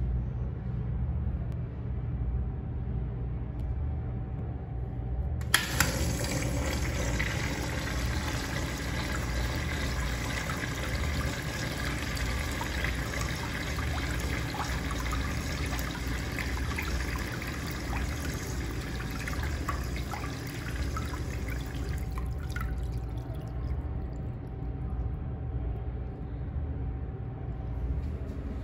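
Urinal's chrome flushometer valve flushing: two sharp clicks about five seconds in as it opens, then a steady rush of water through the bowl for about sixteen seconds before it tapers off and shuts.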